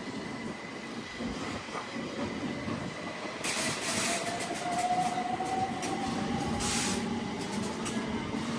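London Underground S7 stock train pulling away, its motor whine rising slowly in pitch over a steady low rumble, with two short bursts of hissing partway through.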